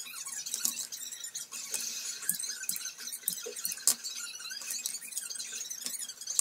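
Irregular clicks, taps and scraping of small hard parts being handled, with one sharp click about four seconds in, over a faint steady hum.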